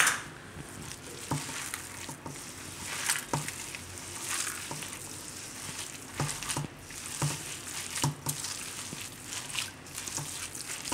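Hands squeezing and mixing a wet mixture of grated bottle gourd and gram flour in a stainless steel bowl: a continuous wet, squelching rustle with scattered light knocks and ticks against the bowl.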